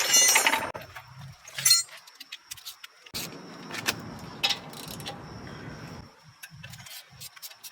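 Metal clinks and rattles of brake caliper bolts and hand tools being handled. One loud ringing clink comes at the start, followed by scattered lighter clicks and some rustling handling noise.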